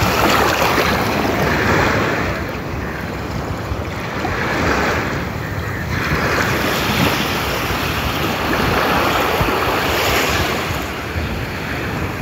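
Ocean surf at the shoreline: a shallow wave wash rushing up over wet sand and draining back, rising and falling in slow surges. Wind rumbles on the microphone underneath.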